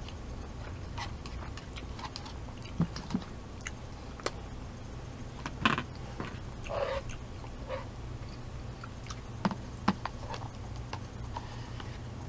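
Mouth sounds of someone eating udon noodle soup: chewing and smacking with scattered wet clicks and a few louder smacks, the loudest near the middle, over a steady low hum.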